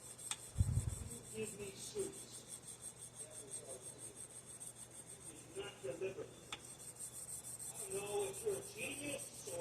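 Wet sandpaper backed by a small metal block being rubbed back and forth along a steel knife blade in fast, even hand-sanding strokes. A dull thump about a second in.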